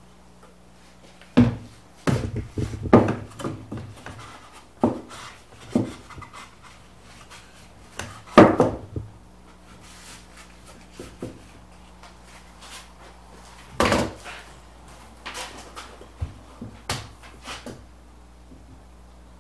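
Wooden knocks, bumps and scrapes as a stained 2x6 board is worked into place as a shelf inside a pine table frame. The knocks come in irregular clusters, loudest about a second and a half in, around three seconds, at eight and a half seconds and at fourteen seconds, with quieter rubbing between them.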